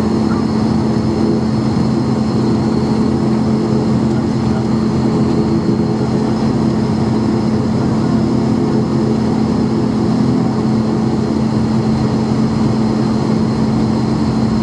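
ATR 42-500 turboprop engines and propellers heard from inside the cabin: a steady, even drone with a strong low hum and a faint high whine above it.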